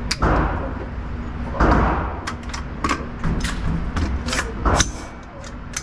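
Gunshots at a shooting range, several at uneven intervals, each sharp crack followed by a short echo; the loudest come about a quarter second and a second and a half in.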